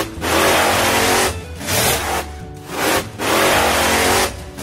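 Car engine revving in repeated bursts of about a second each, with short dips between them, with background music under it.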